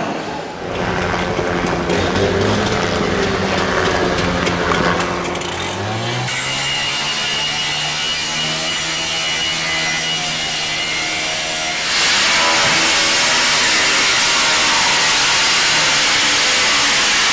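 Two-stroke gas-powered cut-off saw revving up, then running at a steady high speed as its blade cuts into a steel door. The cutting gets louder about two-thirds of the way through.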